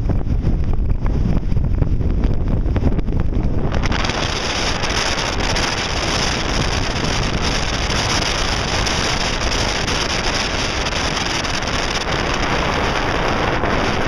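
Strong wind buffeting the microphone in a low rumble, with the rush of breaking surf. About four seconds in the sound turns to a broader, hissier roar of wind and surf.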